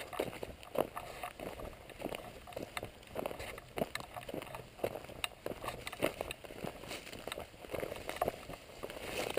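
Footsteps of a person walking on dry, cracked mud at a pond's edge: irregular short steps, one or two a second.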